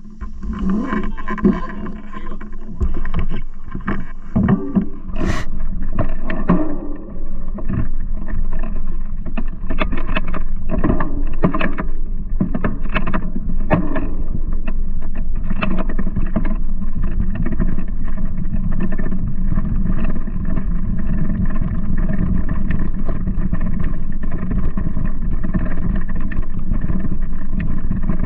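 Giant Talon mountain bike ridden over a bumpy grass and dirt trail, heard through a camera on the bike: a steady rumble of wind and tyres on the microphone, with frequent knocks and rattles from bumps that are thickest in the first half.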